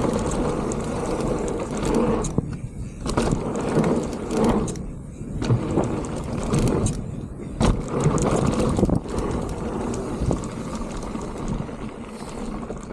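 Mountain bike riding fast down a dirt trail: tyres rolling on dirt and wind on the microphone, uneven and swelling, with frequent sharp clicks and knocks from the bike rattling over bumps.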